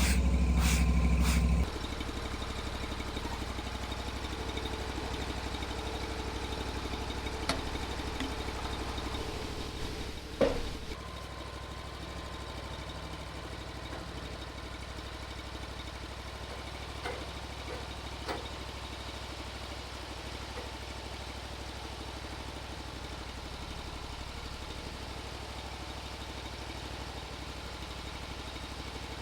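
Portable sawmill's small gas engine running, louder at first and dropping to a steady idle about a second and a half in. A sharp click comes about a third of the way through, with a few fainter ticks later.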